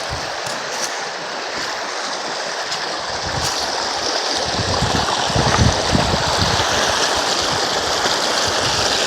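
Creek water rushing over rocks close to the microphone, a steady hiss. From about halfway, irregular low rumbles of buffeting on the microphone join it.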